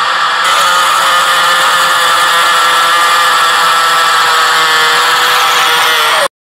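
Loud, steady sound-design drone: a dense whir with a held tone whose pitch sinks slightly near the end, cut off abruptly about six seconds in.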